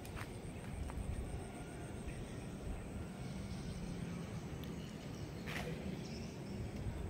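Outdoor background noise: a steady low rumble with a few short clicks, the sharpest about five and a half seconds in.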